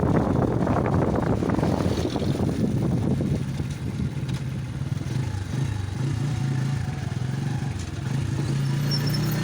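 A motor vehicle engine running steadily, with wind rushing on the microphone during the first few seconds.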